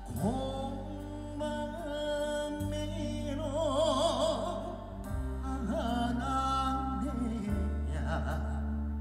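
Live band music with a singer holding long notes with a wide vibrato over steady bass chords.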